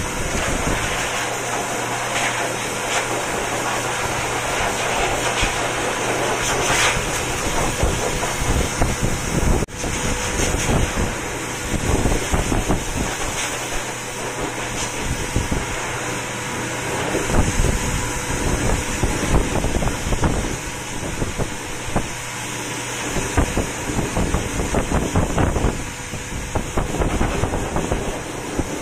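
Hose-fed pet grooming blow dryer running steadily, a constant rush of air with a faint steady tone in it, blown through a long-haired cat's fur.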